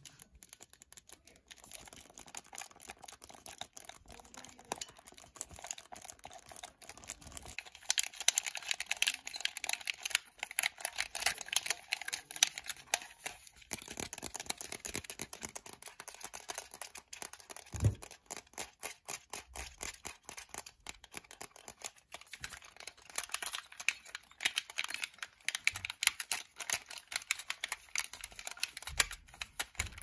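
Fingers tapping and clicking on an Xbox 360 controller's plastic shell and buttons in a fast, dense patter of small clicks. It is lighter at first and busier from about a quarter of the way in, with one duller knock near the middle.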